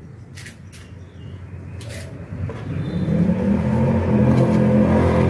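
Background music with a low, droning tone swells in about three seconds in and becomes the loudest sound. Before it there is only a faint hiss of dried fish frying in a pan over a wood fire, with a few sharp clicks.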